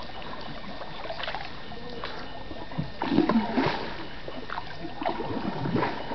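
Canoe paddles dipping and pulling through river water in a repeated stroke, each stroke a short splash, over a steady wash of water noise; the splashing is loudest about halfway through.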